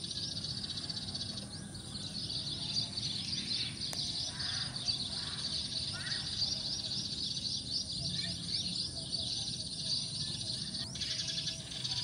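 Eurasian tree sparrows chirping in a dense, continuous chatter of quick high chirps.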